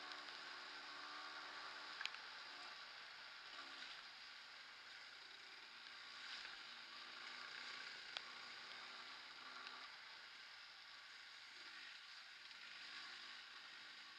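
Faint motorcycle engine and road noise while riding a wet dirt road, with a couple of light knocks.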